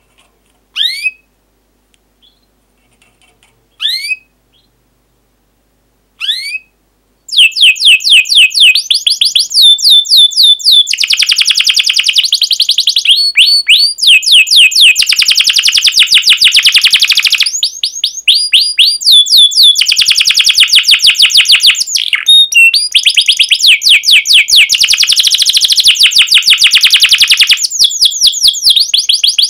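Domestic canary singing: first a few single rising chirps a few seconds apart, then from about seven seconds in a loud, long song of fast trilled rolls with only brief pauses.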